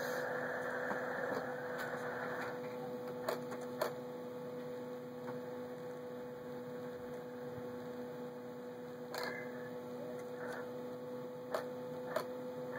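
A steady electrical hum with a few scattered sharp clicks.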